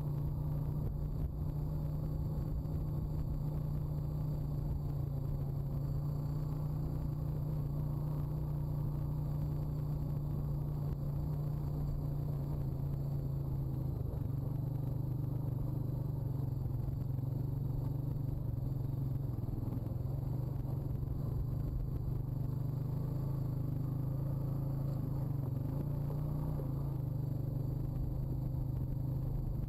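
Honda quad's single-cylinder four-stroke engine running steadily as the ATV rides a dirt trail, its pitch dropping a little about halfway through.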